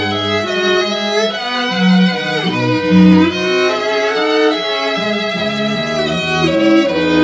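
A string trio (violin, cello and a second upper bowed string) playing together: held, bowed notes, the cello moving through low notes beneath the melody.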